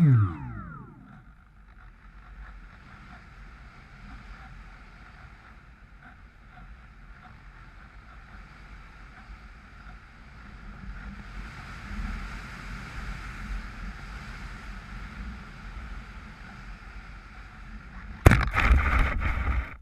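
The Bixler V1.1's small brushless motor whine drops fast in pitch as the throttle is cut. Low wind noise follows as the plane glides. About eighteen seconds in, a sudden thump and a second and a half of loud rough noise mark the touchdown.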